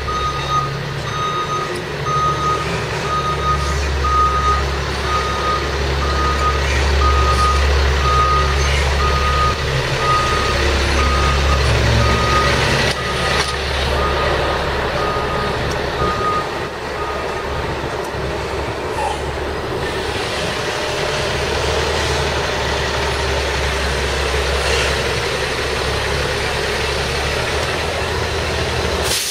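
Backup alarm of a reversing truck or construction machine beeping evenly, about one and a half beeps a second, over the steady low hum of its engine. The beeping stops after about seventeen seconds while the engine runs on.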